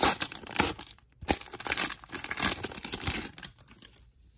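A Pokémon TCG booster pack's foil wrapper being torn open and crinkled by hand, a run of crinkling rips that dies down about three seconds in.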